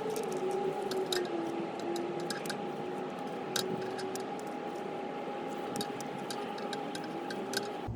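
Brake caliper piston compressor tool being turned to push the piston back into the caliper, with scattered sharp clicks and creaks. Under it runs a steady whine with a second, lower tone that wavers slowly in pitch.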